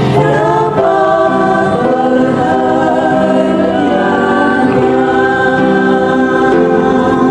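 A choir singing a gospel hymn in several-part harmony, holding long chords that change every second or so.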